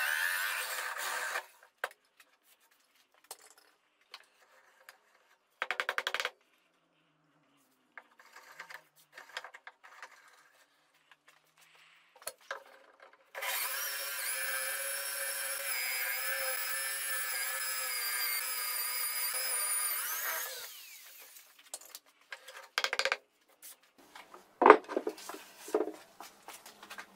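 Electric drill in a portable drill guide stand boring holes into wood. The motor runs for about a second at the start, gives a short burst a few seconds later, and runs steadily for about seven seconds in the middle, dropping off as it stops. Several sharp knocks follow near the end, one much louder than the rest.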